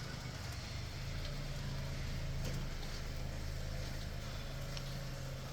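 Acura TSX's 2.4-litre four-cylinder engine running steadily at low revs, a constant low hum, as the car creeps along at walking pace.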